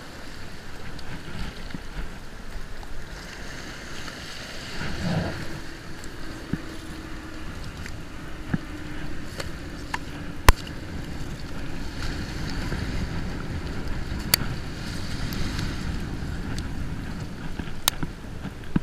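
Wind noise on the microphone over small waves washing onto a sandy shore, with three sharp clicks in the second half.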